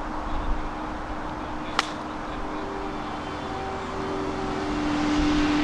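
A golf pitching wedge strikes the ball once with a sharp click, about two seconds in. Under it a motor vehicle's engine hums steadily and grows louder near the end.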